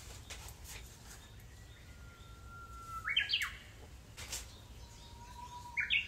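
Japanese bush warbler (uguisu) singing its hō-hokekyo song twice: each time a long steady whistle, then a quick run of notes jumping upward, the second song coming near the end. A few faint clicks between the songs.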